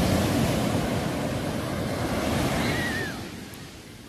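Ocean surf breaking and washing up a sandy beach: a steady rush of waves that dies down about three seconds in.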